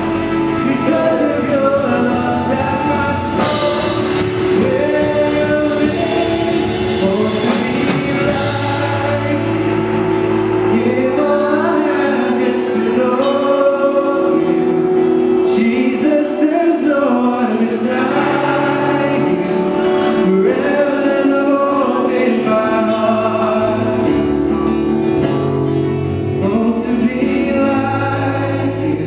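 Live worship band music: several voices singing a melody over electric guitars, an acoustic guitar and drums, with a steady bass line underneath.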